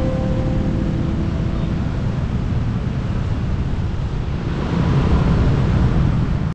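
Steady traffic and wind noise picked up by a camera on a moving vehicle in city traffic, swelling a little about five seconds in. The last note of a guitar fades out at the start.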